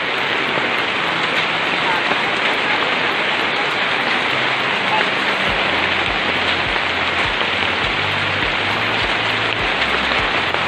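Hailstorm: hail and rain pelting down heavily, a steady dense hiss and patter.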